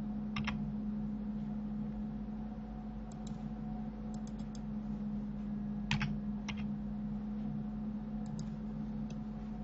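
Scattered key presses on a computer keyboard, a dozen or so short clicks singly and in small clusters, the loudest about six seconds in, over a steady low electrical hum.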